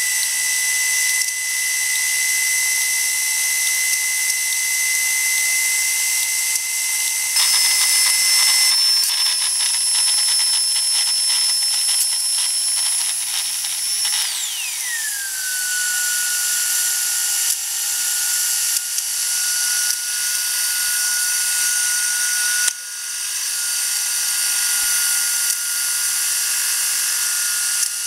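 Karsten Gintschel "Tornado" model steam turbine running with a steady high-pitched whine over a constant hiss of steam. Partway through, the whine sits higher with a fast rattle under it, then glides down to a lower, steady pitch.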